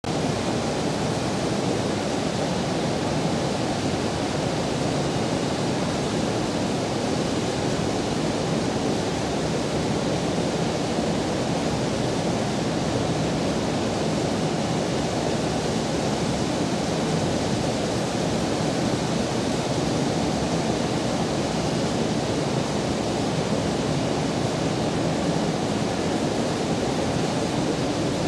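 Steady, even rushing noise with no rhythm, tones or knocks, heaviest in the low-middle range: the ambient drone of a large industrial building.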